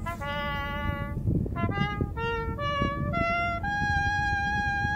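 Music: a melody of single pitched notes in a reedy, wind-instrument-like tone. A few held notes step up and down, then one long note is held from near the end. A low rumbling noise runs underneath.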